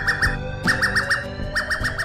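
Electronic alarm sound of the kind played as an emergency-alert alarm: quick chirps in groups of four, a group about every three-quarters of a second, over sustained low tones and slowly rising glides.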